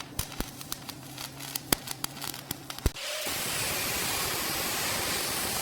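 A run of small clicks and taps, then about three seconds in a steady spray hiss starts abruptly and holds.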